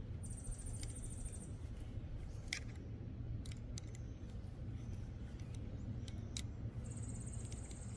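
Small hex key turning tiny screws that fix a stoplight to an aluminium seat block, giving a few faint metal clicks over a steady low hum.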